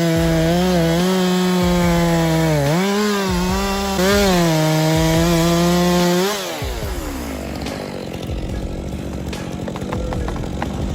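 Two-stroke chainsaw running at full throttle, its pitch dipping briefly several times as it bogs down in the cut. About six seconds in the throttle is released and the engine winds down, leaving quieter noise with a few faint cracks.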